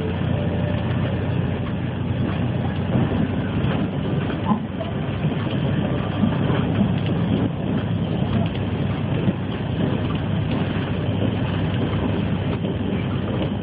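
City bus heard from inside the cabin as it drives down a steep, narrow hill road: steady engine and road noise, with frequent small knocks and rattles.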